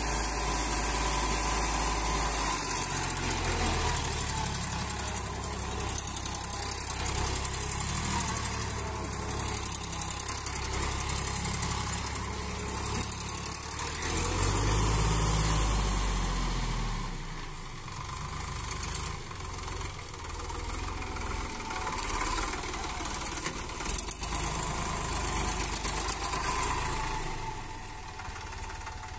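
Sonalika DI 47 RX tractor's diesel engine running under load as it pulls a rotavator through the soil. The engine note swells and rises about 15 seconds in, then drops back about 17 seconds in.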